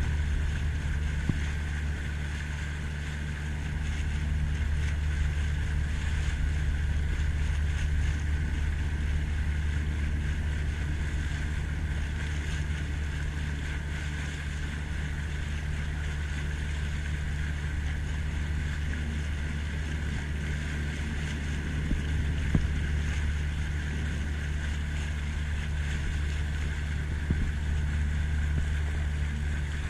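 Boat motor running at a steady speed: a constant low drone, with wind and water noise on the microphone.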